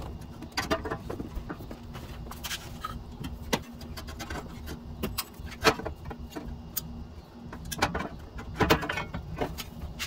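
A JBA exhaust header being twisted and rotated into place, giving a scatter of irregular metal clanks, clicks and scrapes as its tubes knock against the engine and frame.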